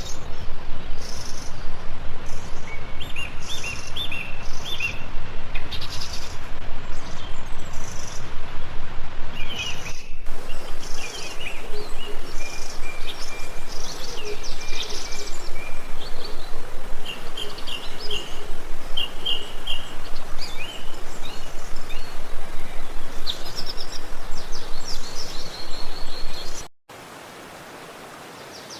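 Forest stream running with a steady rushing hiss, small birds chirping and trilling over it. The sound cuts abruptly twice, and after the second cut, near the end, it is much quieter.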